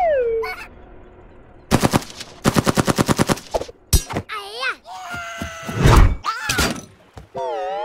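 Rifle sound effect firing a rapid burst of about ten shots a second, followed by a heavy thud and high, wavering squeals.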